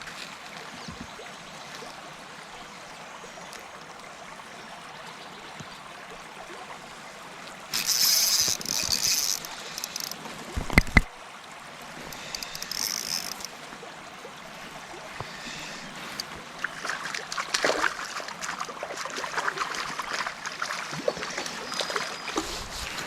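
Steady rush of a flowing river around a kayak. About eight seconds in come a couple of short, loud, high hissy bursts and one sharp knock. Busier rustling and clattering follows toward the end.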